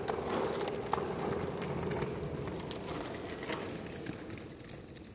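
Skateboard wheels rolling over rough, gritty concrete as the board passes close by and then fades away, with a couple of sharp clicks along the way.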